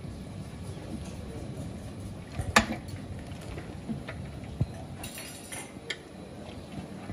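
Long metal ladles clinking and scraping against a big metal cooking pot of trotter curry. A few sharp clinks stand out, the loudest about two and a half seconds in, over a steady low background rumble.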